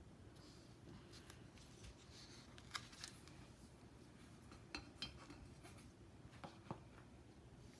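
Quiet handling of paper and adhesive tape: a handful of light ticks and crinkles, loosely in pairs, as the tape strip is pressed along the paper edge.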